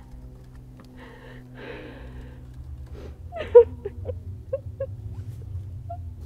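A person crying with emotion: shaky, breathy sobs and gasps, with a few short whimpering cries about three to five seconds in. A steady low hum runs underneath.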